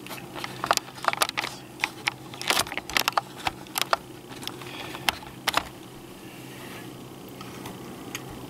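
A quick, irregular run of light clicks and taps that stops about five and a half seconds in, over a steady low hum.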